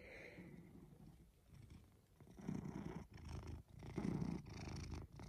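Maine Coon cat purring softly close up, the purr swelling with each breath about every second and a half.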